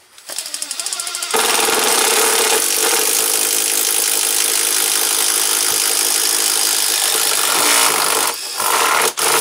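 Makita cordless drill boring a spade bit through a wooden framing member: it starts slowly for about a second, then runs steadily at full speed as the bit cuts through. Near the end it lets off briefly and bites again in two short bursts.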